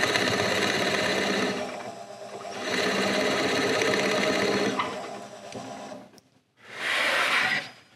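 Drill press running with a 13 mm brad point bit, boring into a wooden guitar body in short plunges: a steady motor hum that dips about two seconds in, comes back, and fades out about six seconds in. Near the end there is a short burst of hissing noise.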